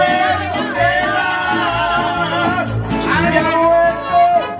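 Live mariachi band playing: a bending melody line over strummed guitars and a bass line that steps from note to note.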